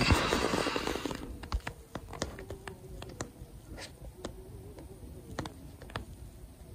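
Handling noise from a handheld camera being moved about: about a second of rustling hiss, then scattered light clicks and taps.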